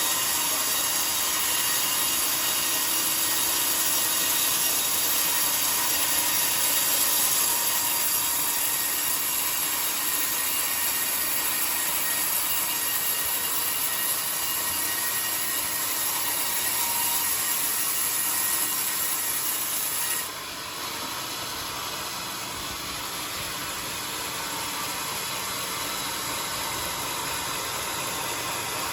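Sawmill bandsaw cutting through a coconut-wood log, a steady high-pitched hiss of the blade in the wood. About 20 seconds in, the cutting sound drops off suddenly and the saw keeps running more quietly.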